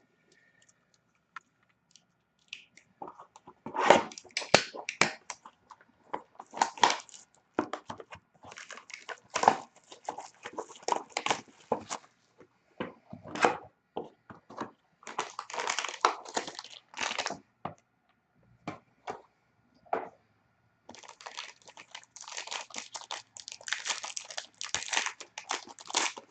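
Wrapping on sealed trading-card packaging crinkling and tearing in repeated crackly bursts as it is opened, starting a few seconds in.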